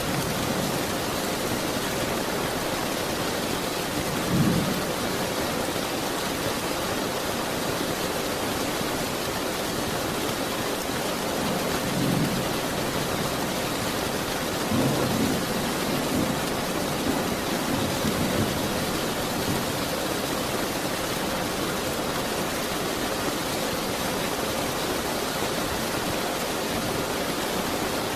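Steady heavy rain falling, with low rolls of distant thunder swelling up a few times, about 4, 12, 15 and 18 seconds in.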